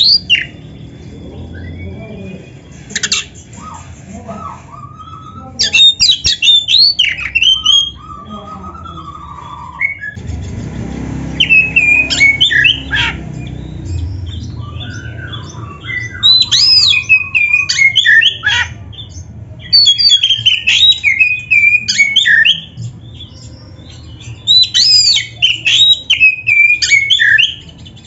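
Oriental magpie-robin (kacer) singing loud bursts of rapid, varied whistles mixed with harsh squawking notes, in phrases of one to three seconds with quieter stretches between.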